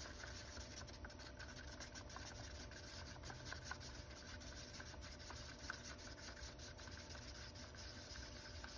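Faint scraping with scattered light ticks: a tool stirring a runny slurry of putty and water in a small cup.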